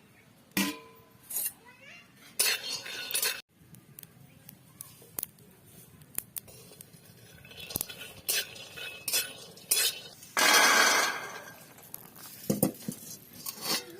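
Metal pots, dishes and utensils clinking and knocking in irregular short strikes. About ten seconds in there is a louder rush of noise lasting about a second.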